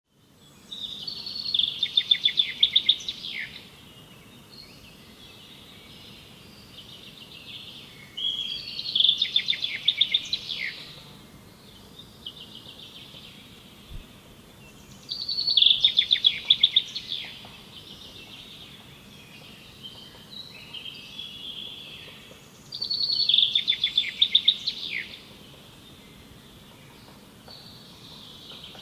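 Woodpecker calling: four loud phrases of rapid repeated notes, each about two seconds long and coming roughly every seven seconds, with fainter bird chirps between them.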